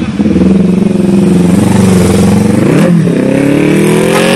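Kawasaki Ninja 250 FI motorcycle engine revving loudly as the bike accelerates away. Its pitch holds steady, drops briefly about three seconds in, then climbs again.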